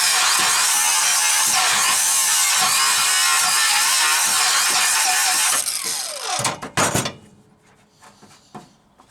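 Angle grinder grinding steel, its pitch wavering under load. It is switched off about five and a half seconds in and spins down with a falling whine, followed by a few light clacks.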